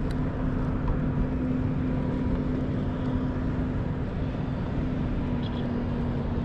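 A steady motor hum that holds one pitch throughout, over a wash of wind and water noise.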